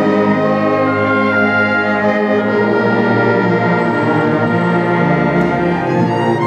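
Youth symphony orchestra playing a slow, sustained orchestral passage. It is heard from among the cellos, so bowed cello and bass notes sit close and heavy under the rest of the orchestra.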